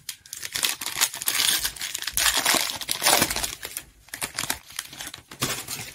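Foil wrapper of a trading-card pack crinkling as it is torn open by hand: a dense run of crackling that lasts about five seconds, loudest in the middle.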